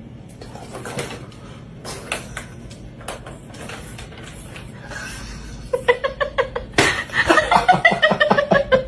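A plastic cat track-ball toy knocked about with a few hollow clacks as cats paw at it, then a person laughing hard from about six seconds in.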